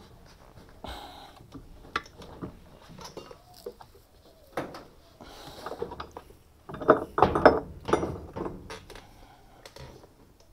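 Metal clinks and knocks of tools on the drive shaft's bottom nut as it is tightened on a Fisher & Paykel direct-drive washing machine. The loudest part is a quick run of sharp knocks about seven seconds in.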